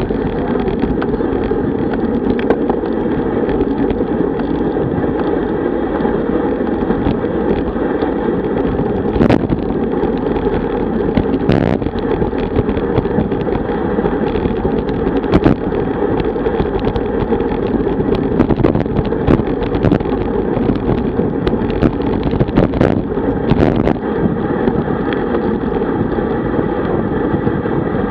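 Wind rushing over the microphone of a camera riding on a road bike at speed, mixed with road and tyre rumble, with scattered sharp knocks and rattles from the bike and mount.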